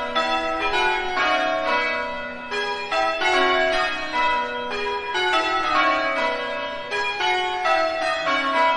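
Several church bells ringing a continuous peal: bells of different pitches struck one after another, a few strikes a second, each ringing on under the next.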